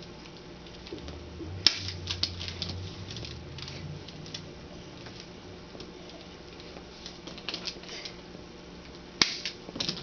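Sharp clicks and light tapping during a chiropractic adjustment of a child on the treatment table, with one sharp click a little under two seconds in and another near the end, and a low hum for a couple of seconds after the first one.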